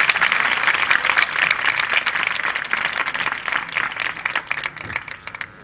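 Audience applauding: many hands clapping together, strongest at first and dying away near the end.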